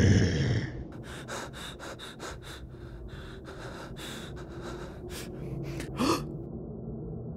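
A person's voice making breathy character noises: a loud, harsh vocal burst at the start, then a run of short, sharp breaths, and a short rising gasp about six seconds in.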